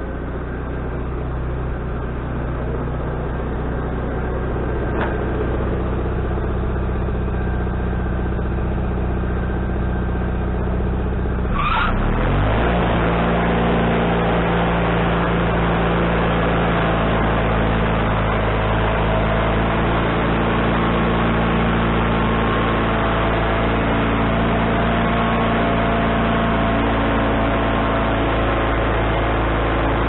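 Wood-Mizer LT40HD band sawmill's engine running steadily, then revving up a little before halfway through as the band blade is engaged. After that the blade cuts through the log with a steady, louder sawing noise over the engine.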